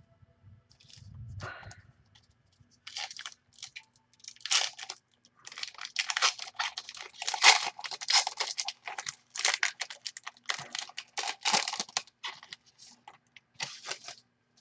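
Foil wrapper of a 2005-06 Upper Deck basketball card pack being torn open and crinkled by hand: a run of irregular crackling rustles, densest in the middle.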